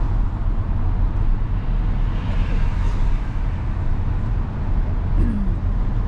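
Car driving: a steady low rumble of engine and road noise.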